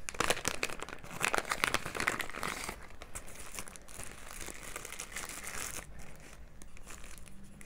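Clear plastic packaging bag crinkling and rustling in the hands as it is opened to take out a clip-on sunglass lens in its cloth sleeve, busiest in the first three seconds and lighter after.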